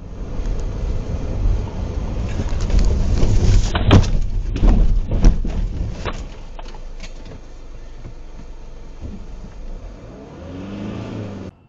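Car on the road with engine and road rumble building, then a car crash: several hard crashing impacts about four to five and a half seconds in, the loudest moments. After the crash a lower steady rumble runs on until the sound cuts off abruptly near the end.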